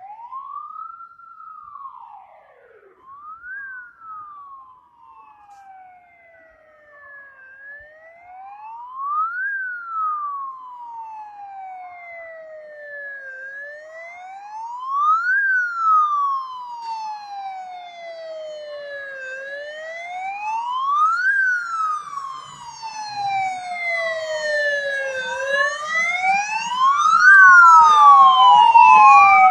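Fire engine sirens wailing in a slow rise and fall, about one cycle every six seconds, growing louder as the trucks approach. Near the end a second siren overlaps out of step with the first.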